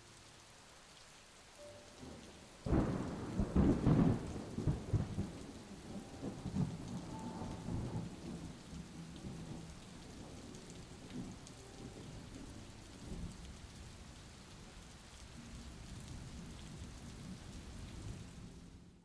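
Steady rain falling, with a roll of thunder that breaks in about three seconds in, is loudest over the next couple of seconds, then rumbles on and slowly fades.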